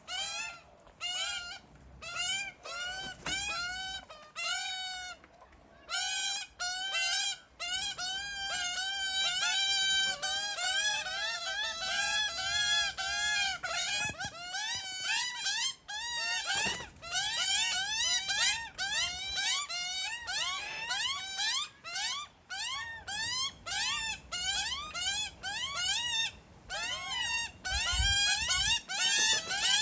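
Two fledgling Australian magpies begging for food: a long run of short, rising-and-falling pitched cries. The calls are spaced out at first and come thick and overlapping from about six seconds in.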